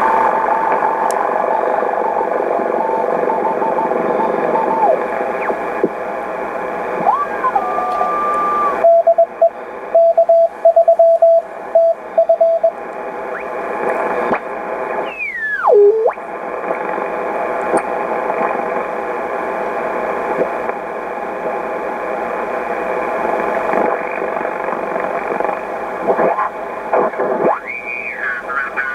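SBE SB-36 HF transceiver's receiver tuned across the 40-metre band, its speaker giving steady band hiss with whistling tones that glide up and down as the dial passes stations. A Morse code (CW) station keys a steady beeping tone for a few seconds in the middle. The receiver is working again as the radio comes to life under restoration.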